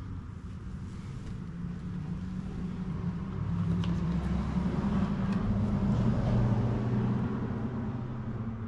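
A motor vehicle's engine passing by, growing louder to a peak about six seconds in and then fading.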